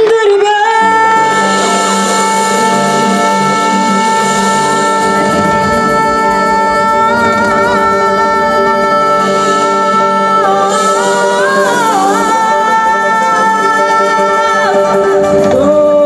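Live folk-fusion band music: long held notes with singing and a melody line moving above them, starting about half a second in.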